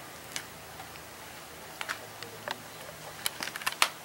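Irregular sharp clicks and ticks, a few scattered and then a quick cluster about three seconds in, over a faint low hum.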